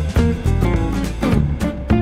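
Instrumental background music with guitar and drums.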